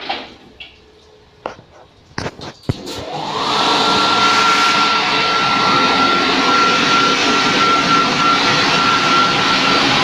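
Touchless car wash machine: a few clicks and knocks, then about three seconds in a motor spins up into a loud, steady rushing noise with a high whine held at one pitch.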